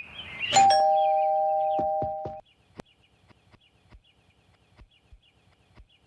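Doorbell ringing once: a two-note chime held for nearly two seconds, then cut off. Faint high chirping follows.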